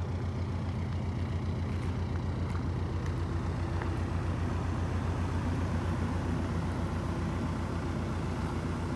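Mitsubishi Rosa minibus's 4M51 four-cylinder diesel engine idling steadily.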